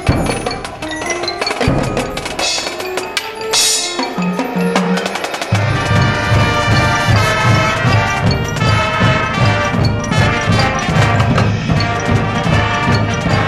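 High school marching band playing its field show. Pitched mallet percussion and drums lead for the first few seconds, then the full band comes in with a denser, louder sound about five and a half seconds in, with the bass drums pulsing underneath.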